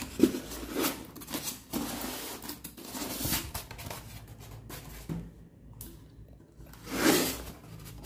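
Handling noise from a heavy 12-inch subwoofer being lifted and turned in its white foam packing inserts: foam rubbing and scraping against the speaker's frame, with irregular knocks and rustles. There is a sharp knock just after the start and a longer scrape about seven seconds in.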